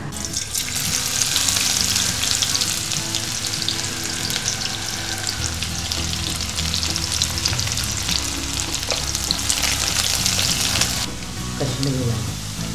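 Chopped onion and curry leaves sizzling and crackling in hot oil in a kadai, stirred with a wooden spatula. The sizzle eases about eleven seconds in.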